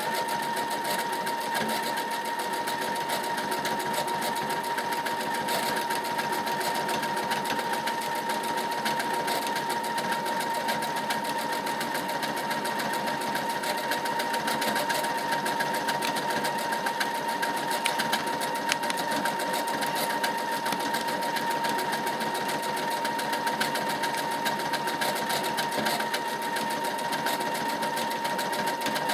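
Brother computerized sewing machine sewing a decorative stitch through calico at a steady speed: a fast, even chatter of needle strokes over a steady motor whine. It starts suddenly.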